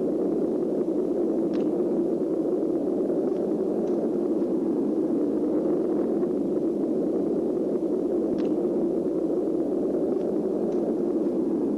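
A steady, even rushing noise with no speech or music, and a few faint clicks.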